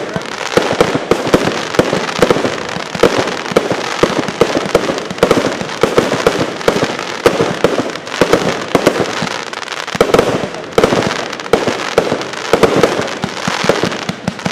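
Fireworks going off in a dense, loud barrage: many sharp bangs and crackles every second, without a break.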